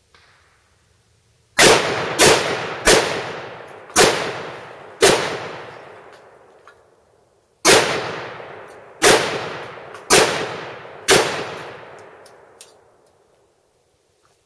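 Ruger Mini-14 semi-automatic rifle firing .223 rounds: nine loud shots, each trailing off in a long echo, five in quick succession, then a short pause and four more about a second apart.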